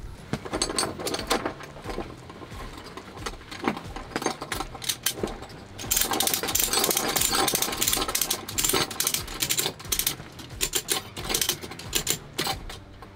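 Snap hook ratchet strap being worked by hand: a series of rapid mechanical clicks and rattles from the ratchet and its metal hardware, thickest in a fast run about halfway through.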